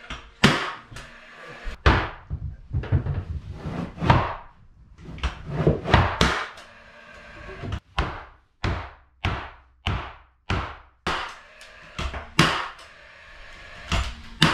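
Hammer blows knocking wooden floorboards into place: a series of sharp, hollow wooden knocks, coming at a steady pace of just under two a second for a stretch near the middle.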